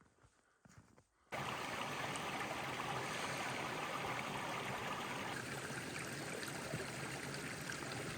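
Mountain creek running, a steady rushing of water that comes in abruptly about a second in, after a few faint footsteps.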